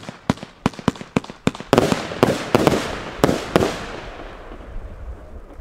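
Aerial fireworks going off: a quick run of sharp bangs in the first second and a half, then several louder, fuller bursts that die away over the last couple of seconds.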